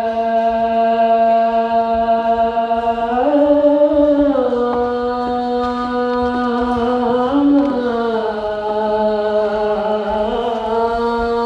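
A man's solo voice in Islamic chant, one long unbroken phrase of held notes that rise and fall slowly between a few pitches.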